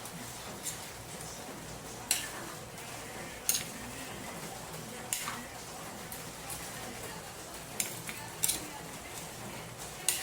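A metal utensil stirring in a cooking pan, knocking and scraping against the pan with sharp clinks every second or two over a steady hiss.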